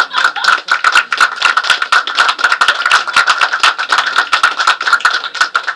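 Applause from a small group of people clapping, dense and loud, thinning out near the end.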